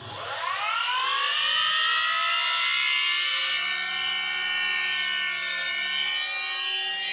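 Small bench grinder switched on, its motor whine rising over about a second as the wheel spins up, then running at a steady high whine. The tip of a small steel screw is held against the grinding wheel, grinding off its thread.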